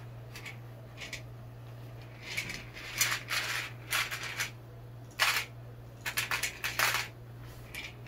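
Short, irregular rustles and scrapes of boiled spiral macaroni being stirred by hand on a plate, coming in clusters, over a steady low hum.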